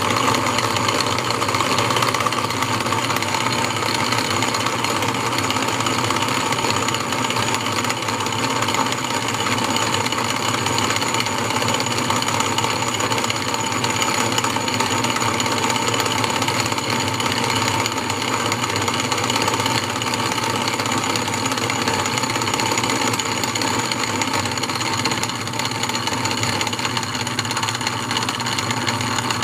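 1920s Wade bench lathe running steadily, belt-driven by an electric motor and spinning a wooden workpiece: an even mechanical running sound with a thin high whine.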